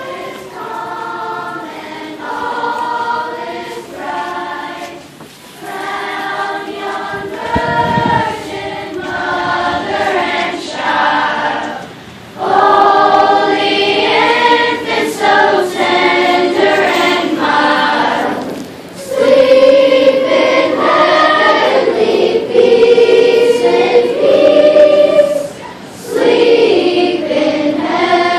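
A choir singing in sustained, held notes, growing louder about twelve seconds in and again about nineteen seconds in.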